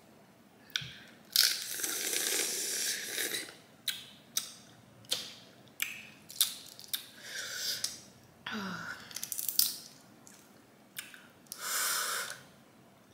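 Boiled crawfish being cracked and peeled by hand: a scattered series of sharp shell snaps and clicks with wet, saucy squishing, and two longer wet hissing sounds, one early and one near the end.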